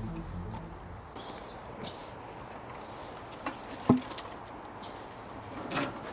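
Quiet outdoor background with a few sharp knocks, the loudest about four seconds in, as heavy stone grave covers are handled and set down; background music fades out at the start.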